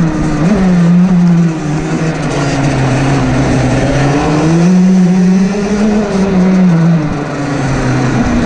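Rotax DD2 kart's 125 cc two-stroke single-cylinder engine running under race load, its revs falling off about a second and a half in, sinking lower, climbing back up through the middle and dropping again near the end.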